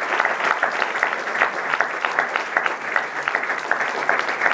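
Audience applauding, many hands clapping at once at an even level.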